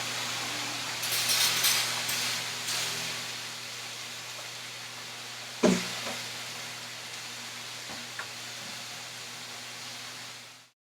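Buffalo and chicken kebab skewers sizzling in olive oil on a hot skillet, the hiss louder for the first few seconds. One sharp knock comes about halfway through, a couple of faint clicks follow, and a steady low hum runs underneath.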